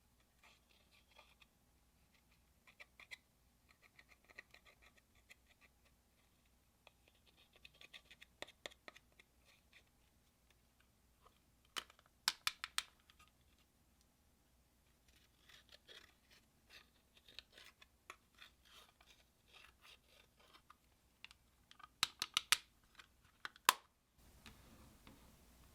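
Clear slime being worked by hand with makeup mixed in: faint sticky clicks and crackles in irregular clusters, with two louder bursts of rapid pops, one about halfway and one near the end.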